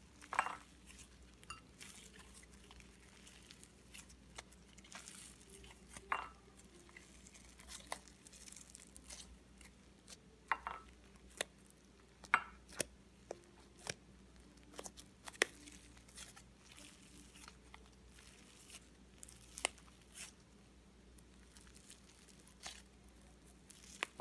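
Shaving-cream slime, activated with laundry detergent, being squeezed and kneaded by hand in a glass bowl: quiet, irregular squelches and crackling pops, with a sharper snap every few seconds.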